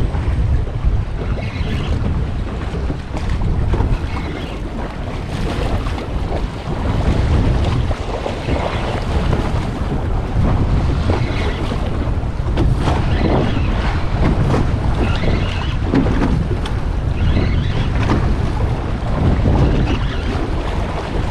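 Strong wind buffeting the microphone in a heavy, uneven rumble, over choppy sea water splashing around a small boat.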